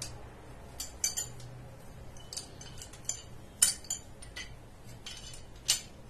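Slide wrench clicking and clinking against the metal S-nipple connector and pipe fitting as it is set on and turned to tighten the joint: a string of light, irregular metallic clicks, the sharpest a little past halfway and again near the end.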